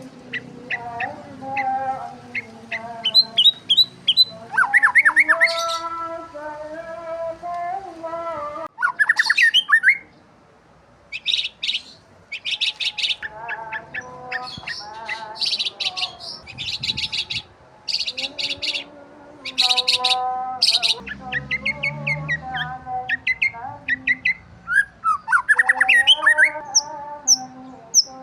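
Several birds chirping and calling together: quick high chirps and whistled notes overlap throughout. From about 11 s to 21 s a harsh, rasping high call repeats roughly twice a second.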